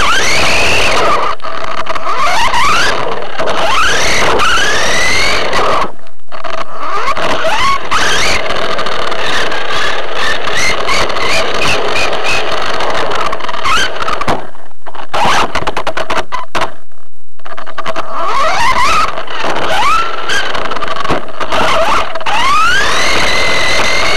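Battery-powered RC car's electric motor whining in rising sweeps as it accelerates again and again, over loud rough road and rattle noise picked up by a camera mounted on the car. The sound breaks off briefly a few times.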